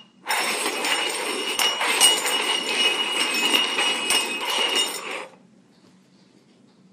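Three stainless-steel cups slid and shuffled quickly over a hardwood floor, scraping and clinking, with the small bell hidden under one of them jingling. The shuffling stops about five seconds in.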